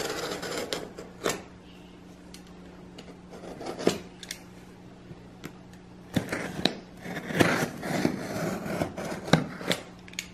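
Box cutter blade slicing through the packing tape along a cardboard box's seam: scattered clicks and scratchy cutting strokes, most of them bunched in the second half.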